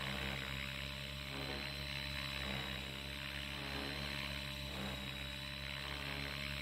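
Radio-controlled helicopter's rotor and motor running steadily in flight, with a constant high whine above the hum.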